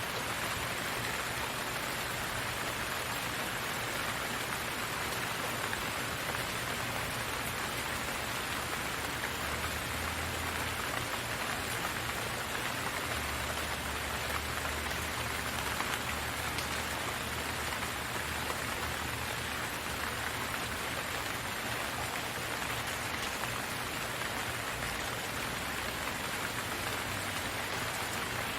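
Rain falling steadily: an even, unbroken hiss of many drops.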